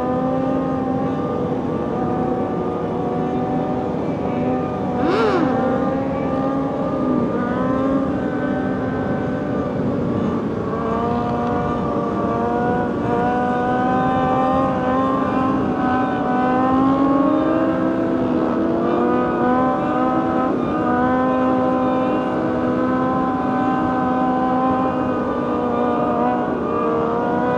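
Motorcycle engines running at a steady cruising pace in a large group ride. One engine's note dominates, holding steady with small swells in pitch, and a brief rising-and-falling sweep passes about five seconds in.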